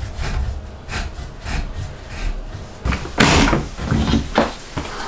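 A series of knocks and clacks from handling workshop gear, the loudest a short rattling clatter about three seconds in, followed by two sharper knocks.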